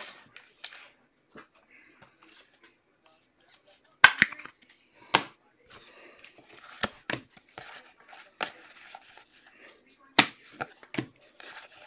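Trading cards and their packaging handled on a tabletop: scattered sharp clicks and taps, about seven of them, with soft rustling and sliding of card stock and wrappers between.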